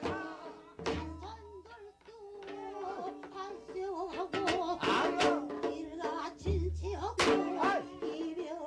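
Korean folk singing from Jindo: a wavering, ornamented vocal line sung over percussion, with sharp strikes and two deep drum booms, one about a second in and one near the end.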